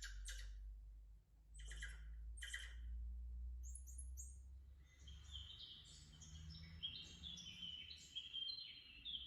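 Small birds chirping and singing faintly: a few short chirps, then a run of high whistled notes stepping up and down.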